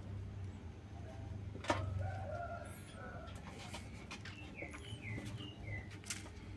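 A run of short, falling chirping calls in quick succession over a steady low hum, with a single sharp knock a little before them.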